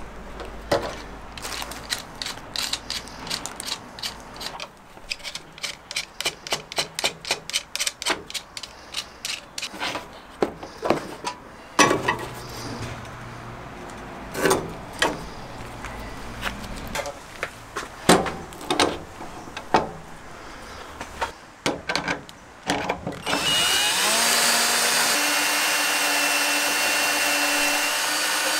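Scattered knocks and clicks of hand tools on a wooden bench, including a quick run of clicks at about four a second. Near the end a power drill starts, its pitch rising as it speeds up, then runs steadily as it bores through a centre hole dowelling jig into a pine batten.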